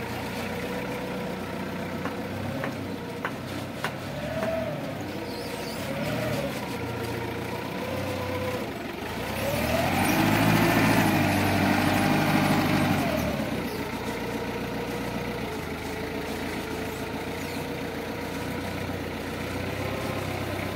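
Linde forklift engine running at a steady idle with brief small rises in pitch, then revving up for about four seconds in the middle before dropping back to idle.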